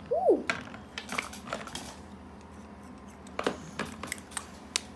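Scattered light clicks and taps of small makeup items, such as a lipstick tube, being handled. A short hummed 'hm' rises and falls in pitch right at the start.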